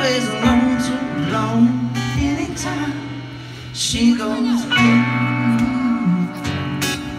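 Live band music: a strummed acoustic guitar and an electric guitar with singing, played through a PA.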